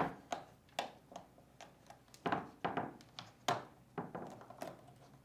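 Plastic clicks and taps, about a dozen short knocks spread unevenly over five seconds, as the retainer clips holding a washer's user interface board to the console touchpad are pushed and the board is lifted away.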